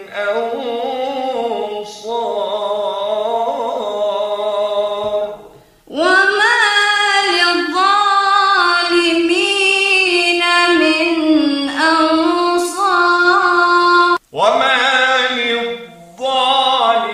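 Melodic Quran recitation in tajweed, taught by repetition. For about five seconds a man's voice chants a drawn-out phrase, sounding thin as if over a telephone. After a short pause a woman repeats it in a higher, fuller voice for about eight seconds, and the man's thin voice resumes near the end.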